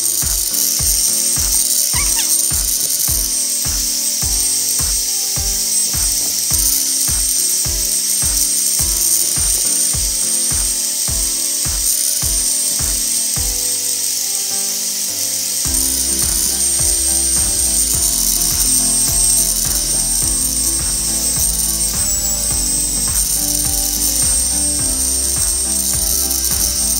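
Electric drill spinning a buffing wheel while the aluminium gear housing of a Makita 9500NB angle grinder is polished against it: a steady high motor whine with hiss. Background music with a steady beat plays along.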